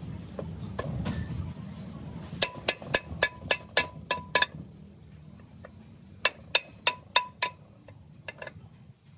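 Hammer tapping a cylindrical metal part down into a bore of a truck's gear housing, metal ringing on metal. About eight quick strikes come at roughly three or four a second, then five more after a pause of about two seconds.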